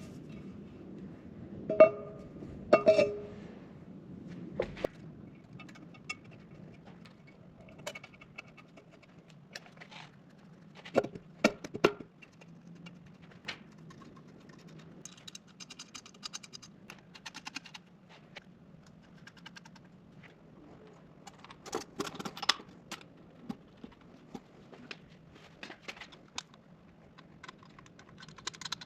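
Wrenches and metal engine parts clinking and clanking as parts are fitted to the engine, with two loud ringing metal clanks about two and three seconds in, over a faint steady hum.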